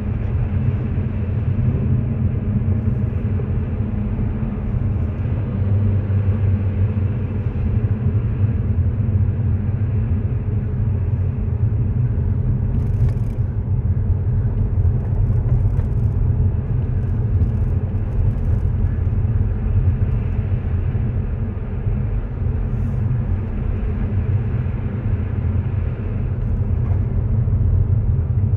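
Car interior noise while driving on a snow-covered road: a steady low rumble of the tyres and engine. A few faint clicks come about halfway through.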